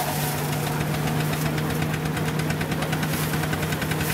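Engine running at a steady speed, a fast even knocking over a constant hum, with old threshing machinery running as it is fed straw.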